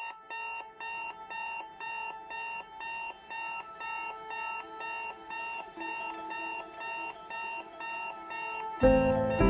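Electronic alarm beeping in a steady rhythm, about two short beeps a second. Near the end a loud musical chord comes in and music takes over.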